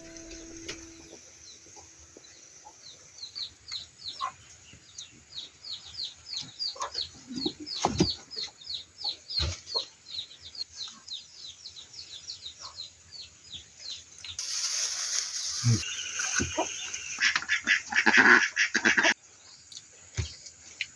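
A bird, most likely farm poultry, peeping over and over in short falling chirps, about three a second, with scattered knocks. Near the end a louder hissing rush comes in and then stops abruptly.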